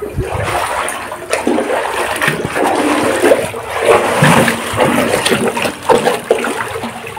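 River water churning and sloshing, loud and continuous, as it is stirred up in the search for shrimp and small fish.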